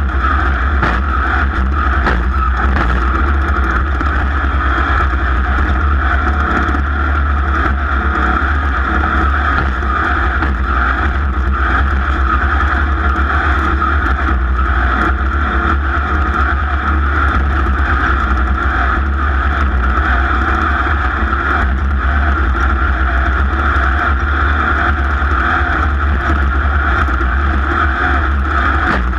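Racing engine running steadily at high speed, holding a constant pitch with no revving up or down.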